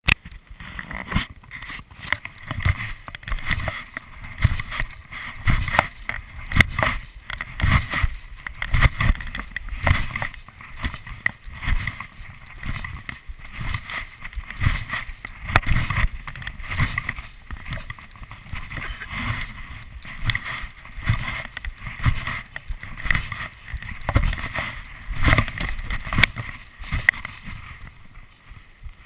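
Trampoline bouncing heard through a chest-mounted GoPro HD Hero in its housing: muffled thumps about once a second, with rushing and rubbing noise between them.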